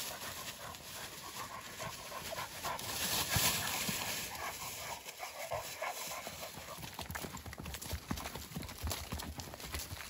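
Hounds panting and scrambling through dry leaf litter alongside a walking horse. The horse's hoofbeats in the leaves come through as a steady run of footfalls in the second half.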